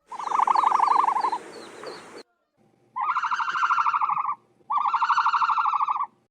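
Ostrich giving three rapidly pulsing, high-pitched calls of about a second and a half each, the first the loudest, with faint chirps of small birds behind it.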